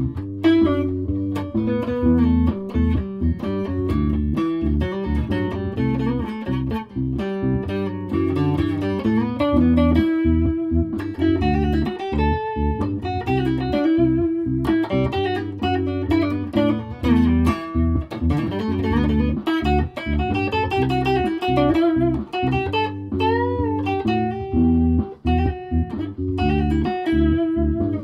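Electric guitar jam: quick single-note lines with string bends over a continuous low bass part.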